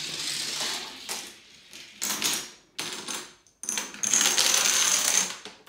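A small toy car rolling and rattling along a plastic racetrack, then a line of dominoes clattering as they topple in a chain, a long run of quick clicks over the last couple of seconds.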